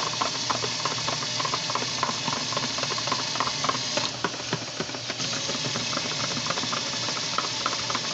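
Hot tap water running from a kitchen faucet into a plastic cup and splashing in a stainless steel sink, while a spoon stirs a flour-and-water thickener in the cup, with light clicks of the spoon against the cup. The rush of water thins briefly about four seconds in.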